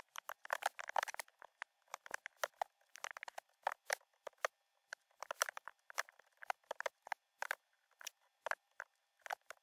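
Computer keyboard being typed on: quick, irregular key clicks in short runs with brief pauses between them.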